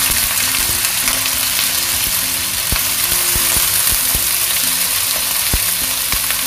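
Raw chicken breast strips sizzling loudly in hot oil in a preheated nonstick wok, the steady searing hiss of meat starting to brown. A wooden spatula stirring them gives occasional soft knocks against the pan.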